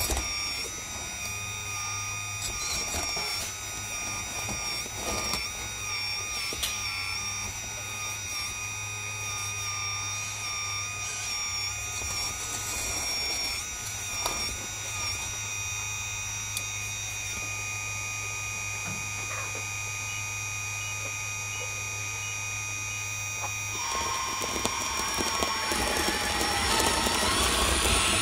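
Hydraulic system of a 1/14-scale RC CAT 336D excavator whining steadily as it digs, with a few scattered knocks and scrapes of the metal bucket in the soil. Near the end the whine changes pitch and grows louder as the boom lifts the bucket.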